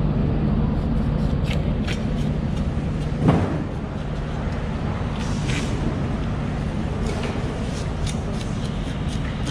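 A steady low motor hum, like an idling engine, under scattered light scrapes and taps of a knife working along a yellowfin tuna's skin, with one louder knock about three seconds in.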